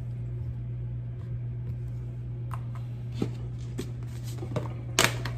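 A steady low hum in a quiet kitchen, with a few light clicks and knocks as a cardboard oats canister and a bowl on a kitchen scale are handled, and a couple of sharper knocks near the end.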